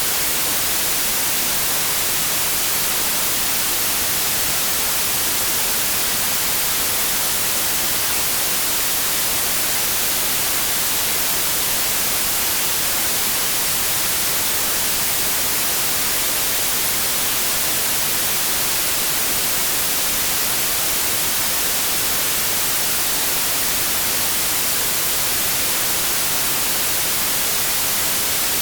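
Steady white noise: an even, unchanging hiss like radio static, brightest in the treble.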